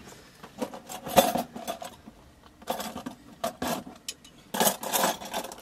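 Small hard objects clinking and rattling as they are handled, in three or four short clusters with pauses between.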